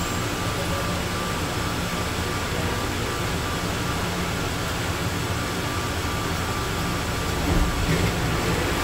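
Atlanta airport Plane Train car, an automated people mover, humming and rumbling inside the car as it slows to a stop at a tunnel station. A faint steady high whine fades out about six seconds in.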